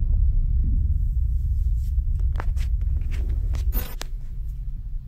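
Deep, loud low rumble with scattered sharp clicks and knocks over it. A short burst of hiss comes near the four-second mark, and after it the rumble is a little quieter.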